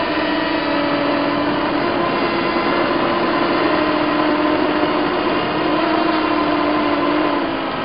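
Motors and propellers of a tiny Hubsan X4-clone quadcopter in flight, heard through its onboard keychain camera: a steady, loud buzzing whine over a dense hiss. Its pitch wavers slightly and dips a little near the end.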